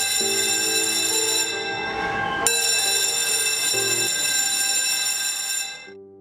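Electric school bell ringing loudly and steadily, briefly fading in its upper tones about two seconds in, then sounding again at full strength and cutting off near the end. Soft background music notes play underneath.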